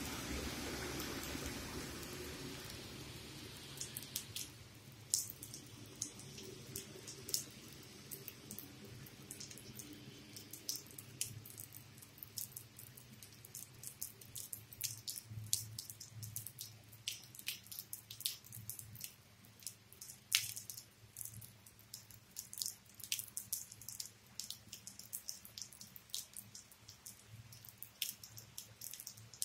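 Rainwater dripping close to the microphone: irregular sharp drops, some louder than others, over a faint low hum. At the start the wash of a truck passing on the wet road fades away over the first few seconds.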